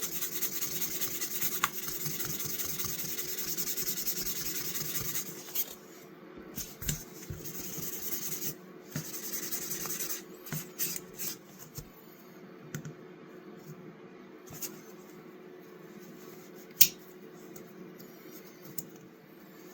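A pocket knife blade being hand-sanded with 2000-grit sandpaper: a fast, rhythmic scratchy rubbing that stops about five seconds in. After it come light handling clicks and taps, and one sharp click about seventeen seconds in.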